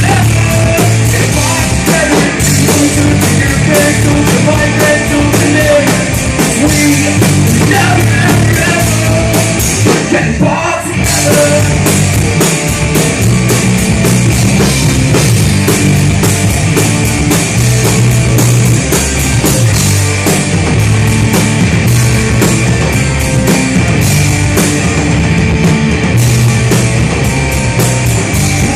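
Rock band playing loud live at a sound check, with a driving drum kit under the music and a voice singing; the music briefly drops away about ten seconds in, then carries on.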